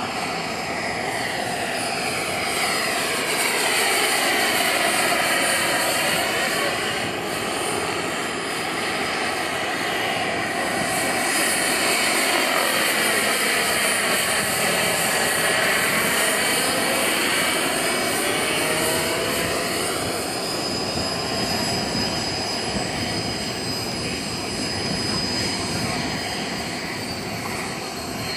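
Jet-turbine powered RC model helicopter in flight: the small gas turbine's steady high whine together with rotor noise, with sweeping, phasing tones as it passes close, loudest twice, around five and fifteen seconds in.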